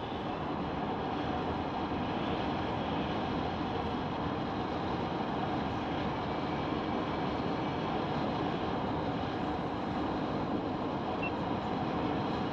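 Steady road and engine noise of a car, heard from inside the cabin while it drives.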